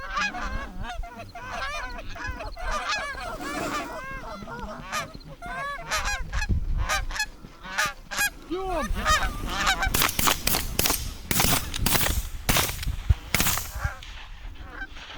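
Canada geese honking and clucking, many short overlapping calls from a flock working in to the decoys. The calling grows denser and sharper in the second half.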